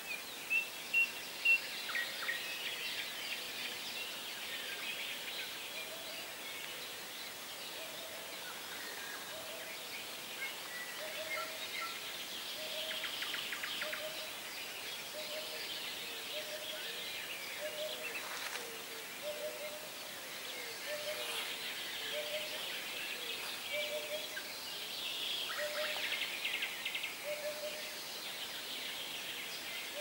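Songbirds singing and chirping in many overlapping short high notes. Through most of the stretch a low two-note call repeats about once a second, all over a soft, steady murmur of flowing water.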